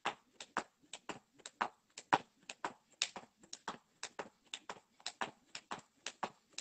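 Skipping rope turning steadily, the rope slapping the paving slabs and trainers landing in a regular rhythm of about two sharp clicks a second, some coming in close pairs.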